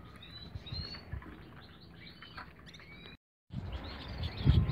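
Small songbirds chirping: a scatter of short, high chirps and quick little up-and-down notes, with a brief dropout about three seconds in.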